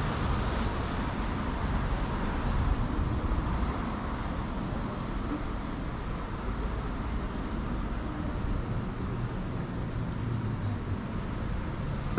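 City street traffic: a steady rush of cars passing, a little louder in the first few seconds as a car goes by close.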